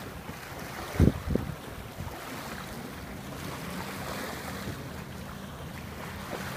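Small waves lapping on the sand under wind noise on the microphone, with the faint steady hum of a jet ski's engine across the water from about two seconds in. Two low thumps about a second in.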